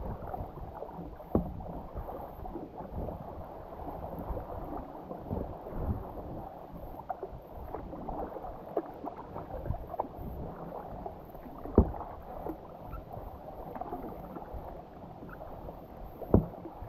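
Water sloshing and splashing around a kayak as it is paddled, with a few sharp knocks.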